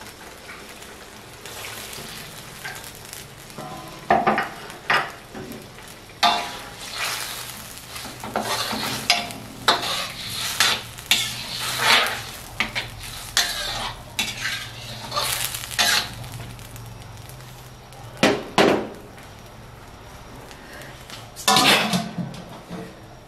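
Metal spatula stirring and scraping in a stainless steel wok while spice paste and carrots sizzle in the oil, in irregular strokes. A few loud metal clanks come near the end.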